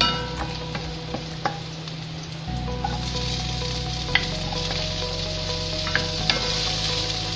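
Chopped garlic sizzling in hot oil in a non-stick wok, stirred with a wooden spatula that knocks and scrapes against the pan. About three seconds in, chopped onion is tipped in and the sizzle grows louder.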